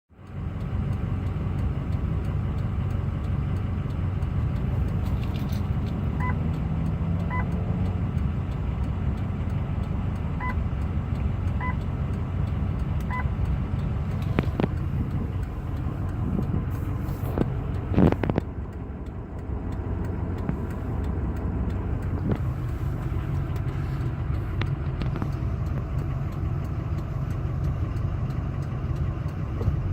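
Ford 6.0 Powerstroke V8 turbo diesel in a 2005 F350 running steadily at idle, with a whining noise the owner cannot identify. A few short beeps sound between about six and thirteen seconds in, and a brief loud knock comes about eighteen seconds in.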